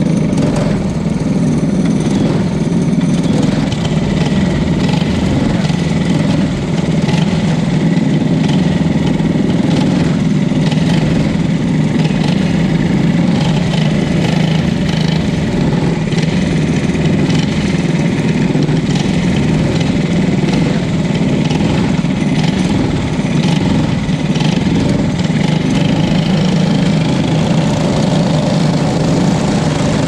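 Racing go-kart engines running at low, steady revs, the camera kart's own engine loudest, as the karts roll slowly around a dirt track.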